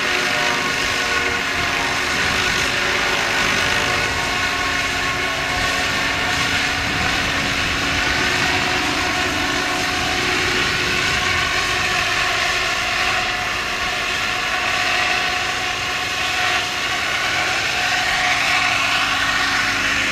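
Radio-controlled model helicopter in flight: a steady whine of motor and rotor with several held tones, the pitch shifting slightly in the last few seconds as it comes down to a low hover.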